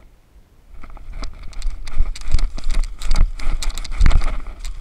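Footsteps running through dry leaf litter and brush, with irregular rustling and heavy thumps from the jostled body-worn camera, starting about a second in.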